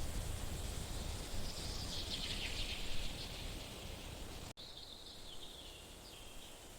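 Outdoor field ambience: a low rumble with high chirring animal calls, broken by an instant dropout about four and a half seconds in, after which the rumble is quieter.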